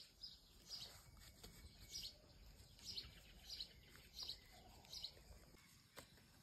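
Faint bird chirps, short and high, repeating every half second to a second over a quiet outdoor background, with one sharp click near the end.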